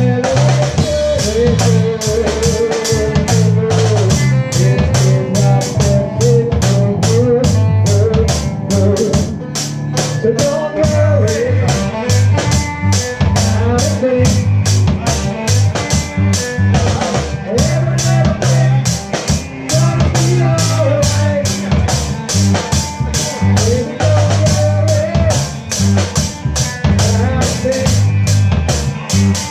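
A live band plays an instrumental passage of a reggae song. A drum kit keeps a steady beat under a pulsing bass line and guitar, and a lead melody line bends and wavers above them.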